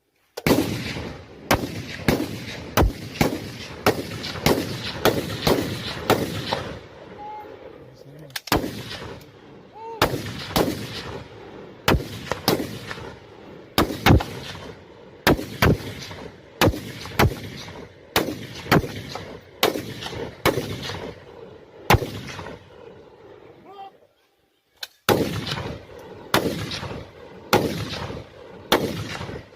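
Sig 716 assault rifle (7.62×51 mm) firing many sharp shots, each with an echoing tail. It fires quick strings at first, then steady single shots about one a second, and after a pause of about three seconds near the end, another string of shots.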